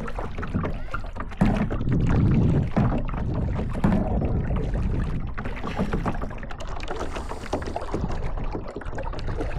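Kayak out on the water: splashing with irregular knocks and clatter over a steady low rumble.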